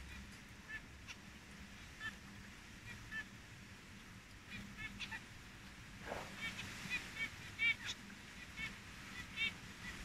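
Caged zebra finches giving short beeping calls, scattered at first and coming thick and fast from about six seconds in.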